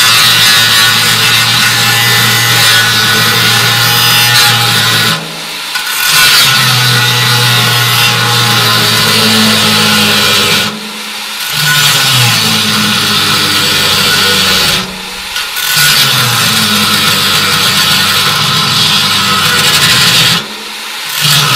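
Corded angle grinder with a quarter-inch cutting wheel cutting vent slits through the steel wall of a 55-gallon drum. It grinds continuously and drops off briefly four times, about every five seconds, with the motor pitch climbing back up each time the cut resumes.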